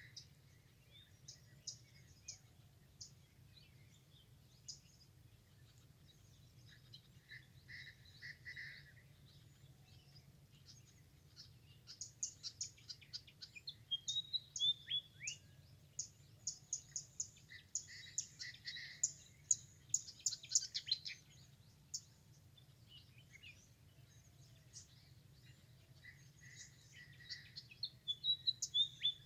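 Several birds chirping and calling in quick, high, short notes with a few falling whistled phrases, busiest through the middle stretch and again near the end, over a faint steady low hum.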